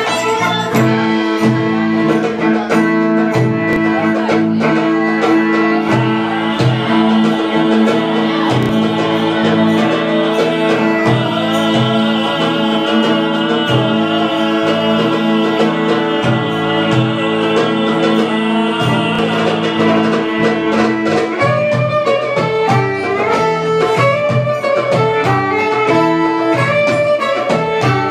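Live band playing belly-dance music: violin over plucked strings, with percussion beats throughout. Long held notes carry the first twenty seconds or so, then the music shifts to quicker, choppier plucked figures.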